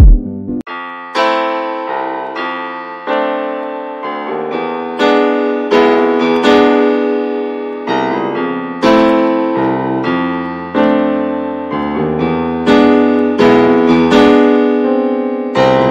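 Background piano music: chords and melody notes struck about once or twice a second, each ringing and fading.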